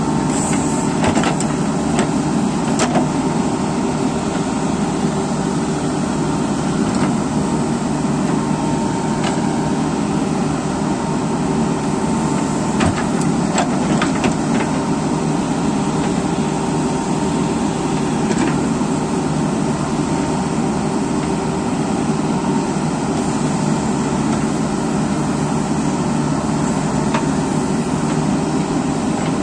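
JCB 3DX backhoe loader's diesel engine running steadily under load while the backhoe digs, with a few short sharp knocks scattered through.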